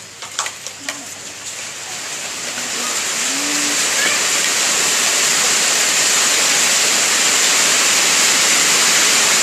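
Heavy rain, a steady hiss that swells over the first few seconds and then holds loud. A few sharp clicks near the start.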